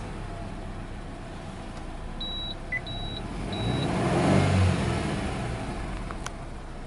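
Subaru Legacy 2.0GT spec B's EJ20 turbocharged flat-four running at a fast idle just after starting, its note swelling louder about four seconds in. Three short beeps from the dashboard's low-fuel warning chime sound over it about two seconds in, and there is a sharp click near the end.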